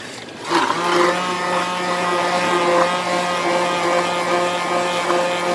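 Handheld immersion blender running in a stainless steel mug of milky coffee, a steady whir as it froths the drink; it switches on about half a second in.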